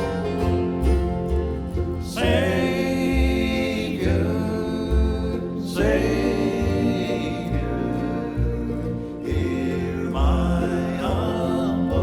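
Bluegrass band playing a slow gospel hymn, with a plucked bass walking steadily underneath and sung phrases coming in about every four seconds.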